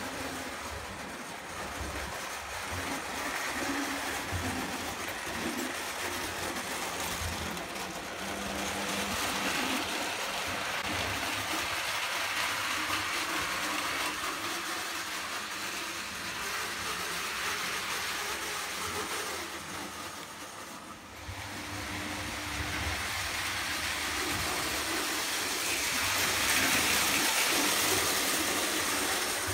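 Lionel O gauge electric toy trains running on three-rail tinplate track, a continuous noise of wheels on metal rails and motors. It dips briefly about two-thirds of the way through and grows louder near the end as a train passes close by.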